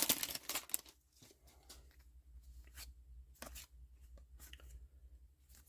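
Trading cards and a foil booster-pack wrapper being handled: a crinkling rustle for about the first second, then faint scattered clicks and slides as cards are flipped one by one.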